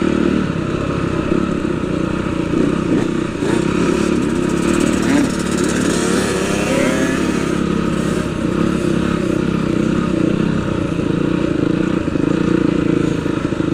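Dirt bike engines: one running steadily, with revving that rises and falls around the middle.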